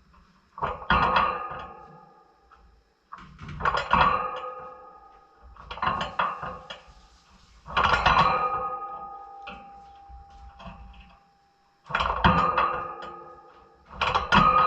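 Slow music of strummed plucked-string chords, one every two to four seconds, each struck sharply and left to ring out and fade.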